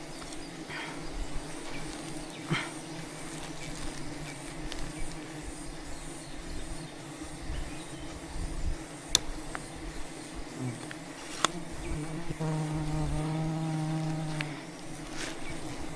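Steady hum of a mass of wild honeybees around the hive. About twelve seconds in, a bee buzzes close by for about two seconds. A few sharp snaps or clicks are heard along the way.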